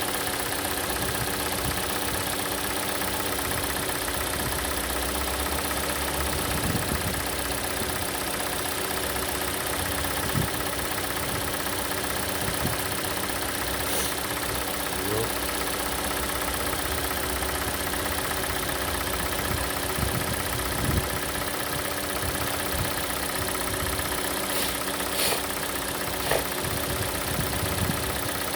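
Hyundai/Kia G4NA 2.0-litre four-cylinder petrol engine idling from a cold start, a steady hum with a few scattered sharp clicks. The owner suspects the hydraulic lifters are knocking, though he thinks the intermittent ticking may instead be the evaporative canister purge valve.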